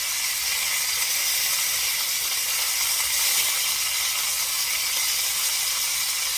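Beef short ribs sizzling steadily as they sear in a stainless steel pan, with light clicks of metal tongs turning them.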